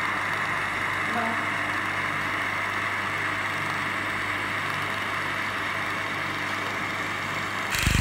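A 500 W handheld fiber laser welding machine running while it welds 3 mm stainless steel: a steady hiss with a low hum under it. Just before the end a louder rushing noise with low thumps starts.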